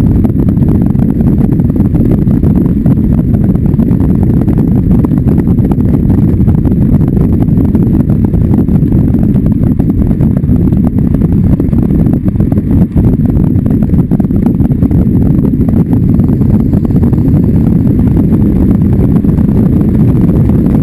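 Race car's engine running hard at speed, heard loud and steady from a hood-mounted onboard camera with heavy wind buffeting on the microphone.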